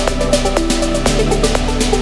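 Electronic background music with a steady beat over held bass notes; the bass changes about a second in.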